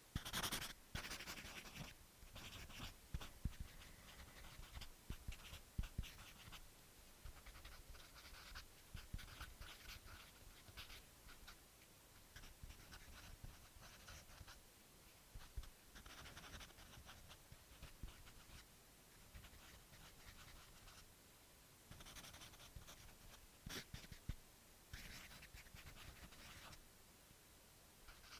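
Permanent marker doodling: faint, scratchy strokes of the felt tip, coming in clusters of quick back-and-forth scribbles with short pauses between. The loudest stroke is right at the start.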